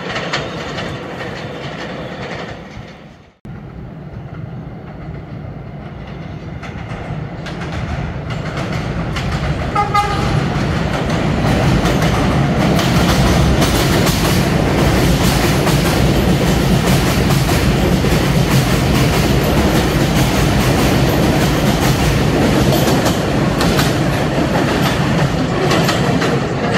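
R211A subway train running into an elevated station on steel wheels and rail, growing louder over several seconds and then staying loud and steady with a rhythmic clatter as the cars pass close by. A short tone sounds about ten seconds in, as the noise reaches its full level. Near the start the sound breaks off abruptly, then picks up again.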